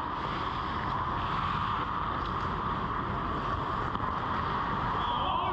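Steady hum and rumble of an indoor ice rink's ambience, heard from inside the goal net.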